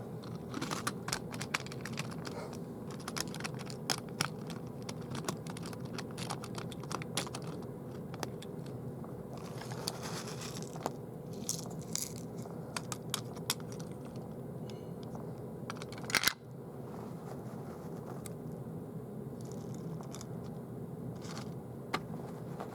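Small clicks, taps and light clatter from model railway coaches and track pieces being handled, over a faint steady hum, with one louder knock about 16 seconds in.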